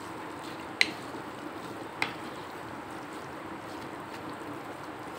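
Wooden spatula stirring and scraping raw minced mutton in a non-stick wok, with two sharp knocks of the spatula against the pan, about a second in and again a second later, over a steady hiss.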